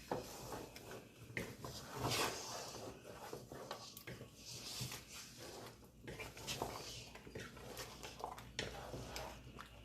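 Spoon stirring thick ogbono soup in a cooking pot: irregular scraping and stirring sounds with occasional light knocks.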